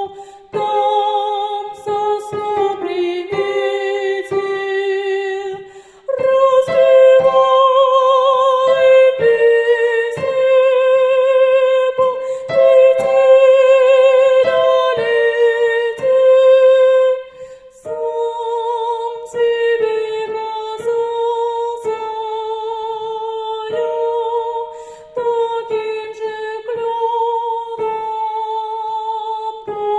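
A female voice sings a slow Russian song in long held notes with vibrato, phrase after phrase with short breaths between them.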